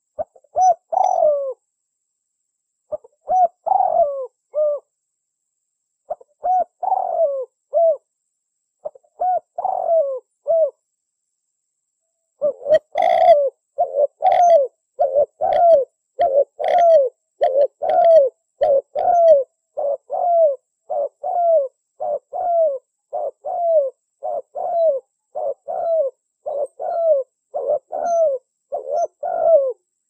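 Spotted dove (tekukur) cooing. At first it gives short phrases of a few coos every few seconds with silence between them. From about twelve seconds in, the coos run on without a break at about two a second.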